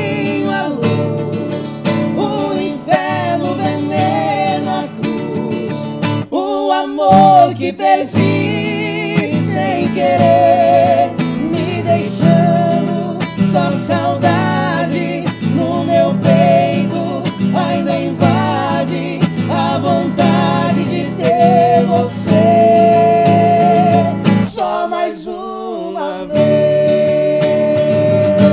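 Two men singing a sertanejo modão in two-part harmony over a strummed acoustic guitar. Twice the guitar drops out for a moment, and near the end the voices hold one long note.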